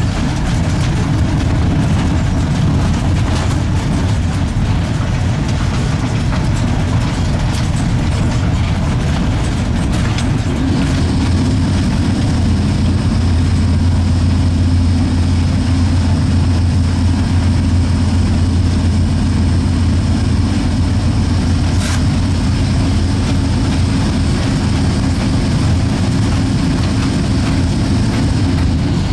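EL2 electric locomotive running along the track, heard from on board: a continuous low rumble and hum. About a third of the way in, a stronger low hum and a steady high whine join it and hold on, with a single sharp click later.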